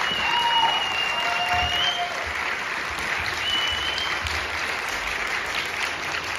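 Audience applauding at the end of a performance, with a few long high-pitched cheers over the clapping in the first few seconds.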